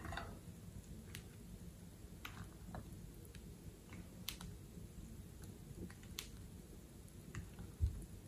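Thick foamy slime being stirred in a glass bowl with a thin stick: faint wet squishing with a few scattered sharp clicks, and a dull thump near the end.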